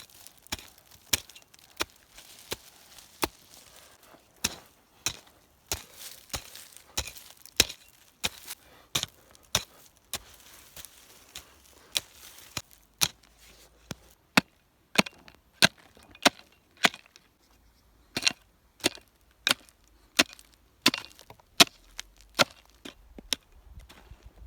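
Wood being chopped: a long run of sharp, irregularly spaced strikes, about one or two a second.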